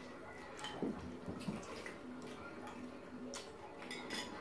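Quiet eating sounds: a few light clicks of a metal spoon and fork against a ceramic bowl of beef pho, with soft mouth sounds of chewing and sipping.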